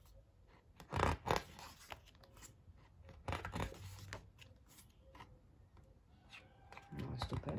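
Pages of a photo book being turned by hand: short swishes and rubs of paper, two louder ones about a second in and softer ones later.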